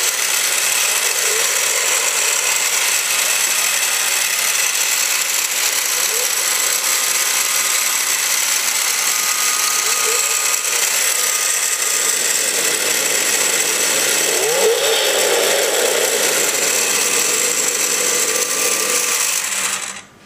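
Snap-on Hemi engine model clock playing its electronic engine-running sound through its small built-in speaker, steady throughout, with a brief rise in pitch like a rev about three-quarters through, then cutting off suddenly near the end.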